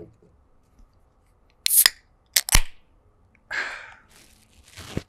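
An aluminium beer can being opened and handled: a short sharp hiss, then two sharp clicks a moment later, with a brief rustle and another click near the end.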